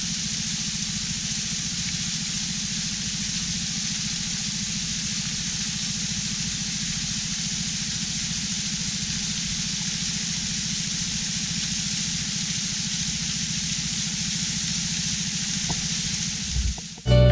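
A dinghy's small outboard motor running steadily, a low rumble with a constant hiss over it; it cuts off abruptly near the end.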